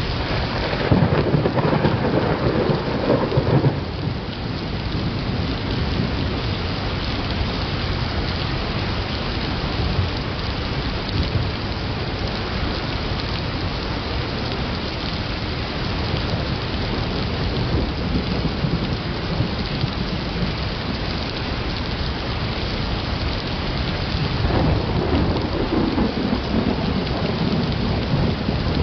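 Steady rain falling through a thunderstorm, with thunder rumbling twice: one rumble in the first few seconds and another starting a few seconds before the end.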